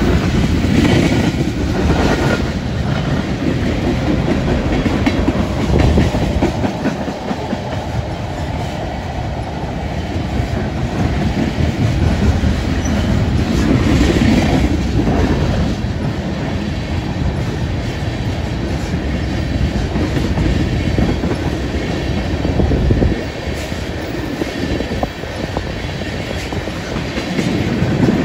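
Freight train tank cars rolling past close by: a steady rumble of steel wheels on the rails with repeated clickety-clack.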